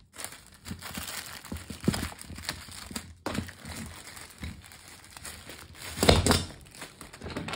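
Packaging of a pliers set being opened and handled: steady crinkling and rustling with some tearing, and a louder burst of rustling about six seconds in.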